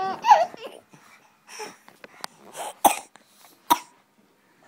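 A baby laughing: a squealing giggle at the start, then a few short breathy bursts, two of them sharp and cough-like, in the second half.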